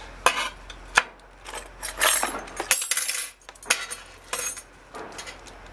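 Metal CPU-cooler mounting brackets clinking and clattering as they are handled and set down on a table, with irregular sharp clicks and some rustling of the plastic bags they came in.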